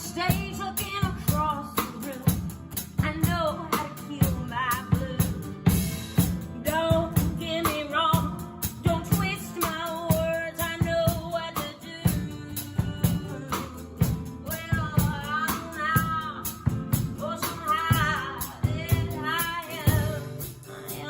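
A woman singing a folk-style singer-songwriter song over instrumental accompaniment with a steady beat, her voice wavering in long held notes.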